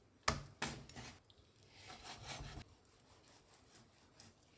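Knife working raw chicken thighs on a bamboo cutting board: two sharp taps of the blade on the board within the first second, then a longer scraping slice through the meat about two seconds in.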